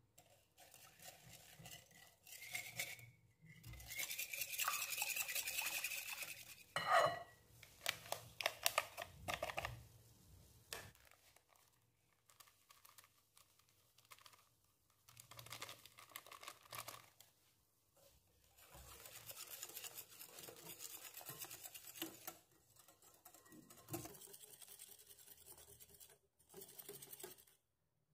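A batter mixture being beaten by hand in a bowl. The fast scratchy beating comes in several spells of a few seconds each, with clinks of the utensil against the bowl between them.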